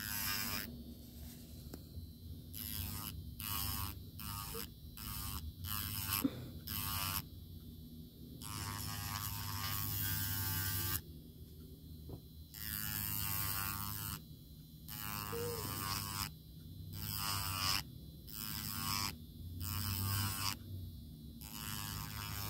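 Electric nail drill running with a steady hum, its bit grinding against an acrylic nail in repeated short passes that start and stop. It is filing away lifted acrylic product.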